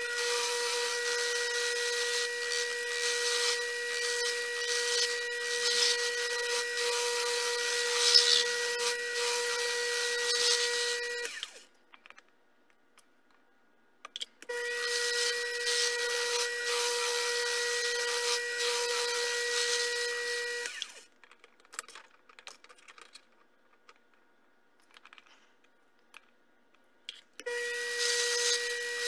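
Sherline miniature lathe running with a steady motor whine and a high hiss while turning a small shaft. It stops about 11 seconds in and starts again a few seconds later. It stops again near 21 seconds, with a few light clicks, and starts once more near the end.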